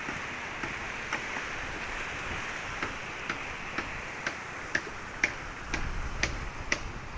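Steady hiss of sea surf, with sharp ticks about twice a second that grow louder near the end.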